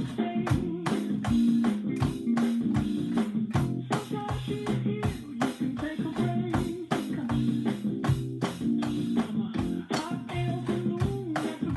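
Electronic drum kit played in a steady beat along with a backing track that has guitar in it.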